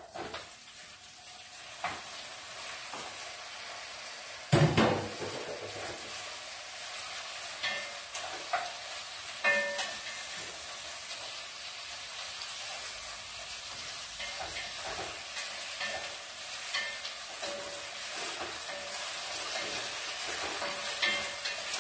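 Chicken pieces going into hot oil with fried onions in a pot and sizzling steadily, stirred with a wooden spatula that scrapes and knocks against the pot. A loud knock about four and a half seconds in.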